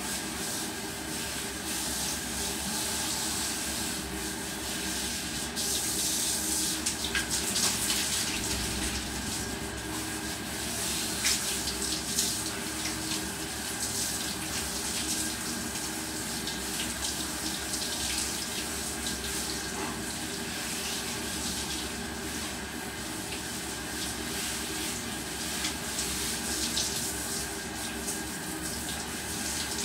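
Water running steadily from a hand-held shower hose in a tiled bathroom as a dog is hosed down.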